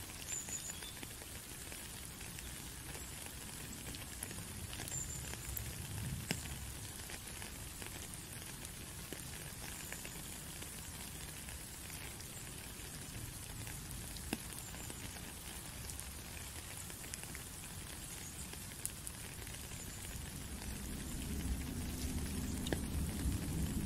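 Rain falling on a puddle and wet ground: a steady hiss with scattered separate drop taps. A low rumble grows in the last few seconds.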